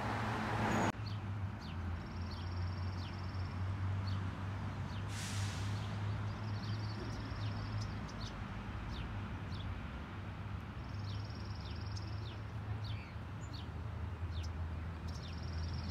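Small birds chirping over a steady low city traffic hum, with a short buzzy trill repeating about every four seconds. Street noise in the first second cuts off abruptly, and a brief rush of noise comes about five seconds in.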